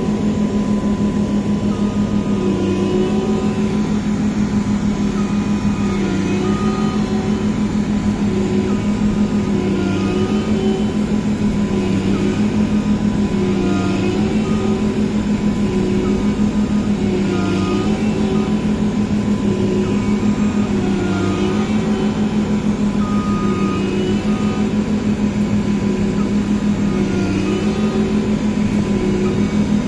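Massey Ferguson CS6050 combine harvester running steadily under load, a constant low engine drone with a thin steady tone over it. Short pitched squeals recur every second or two.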